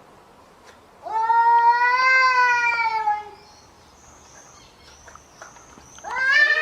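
A cat yowling: one long drawn-out call about a second in, rising then falling in pitch, and another starting near the end. It is the kind of caterwaul cats make when squaring off to fight.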